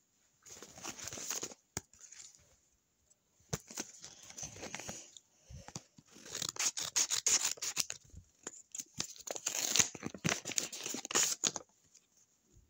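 Paper handled and cut with scissors: crinkling, rustling and snipping in four bursts of a second or two each, with a few sharp clicks between them.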